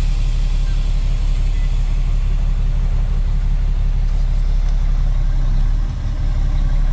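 Freightliner truck's diesel engine running steadily, heard from inside the cab, with a slight change in pitch about six seconds in.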